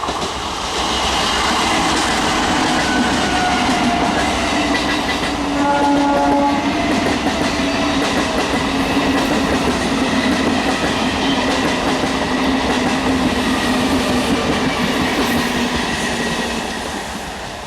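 A train passing close by at speed: a loud, steady rumble of wheels on rail with clickety-clack, building at the start and easing off near the end. A short horn note sounds about six seconds in.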